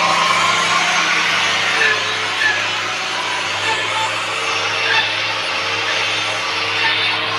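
A power tool running steadily while cutting or working wood, a continuous noisy whir with a low hum under it.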